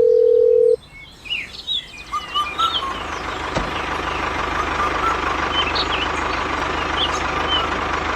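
A steady electronic beep cuts off under a second in and birds chirp. About two seconds in, a small motor starts a steady buzzing hum that keeps running.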